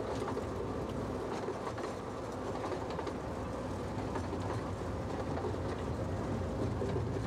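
Miniature railway train running along the track, heard from an open passenger carriage: a steady rumble of wheels on rails with occasional light clicks.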